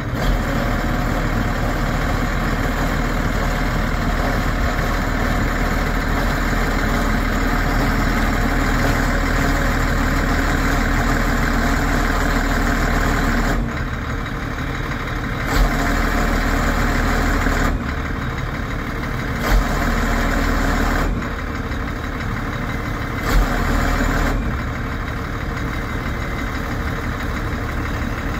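A 1992 Ford F700 bucket truck's engine running at idle while its Altec hydraulic aerial boom is being operated. The steady drone steps up and down in loudness several times, with a few short sharp knocks.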